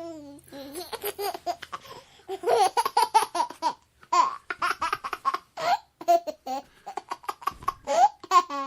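Baby laughing in runs of quick, short giggles, several a second, with brief pauses between runs.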